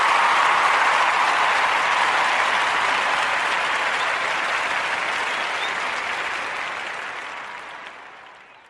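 Applause: a dense, even clapping that slowly fades out and stops near the end.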